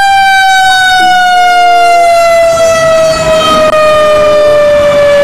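Fire ladder truck's siren sounding one long, loud tone that falls slowly and steadily in pitch.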